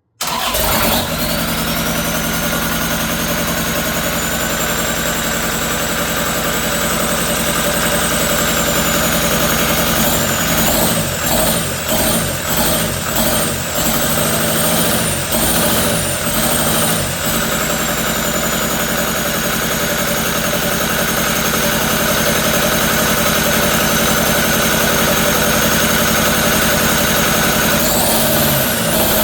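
Kubota V2203 four-cylinder diesel engine running, with a high whine that climbs over the first few seconds. Partway through, the engine speed rises and falls about once a second for several seconds, and it picks up again near the end.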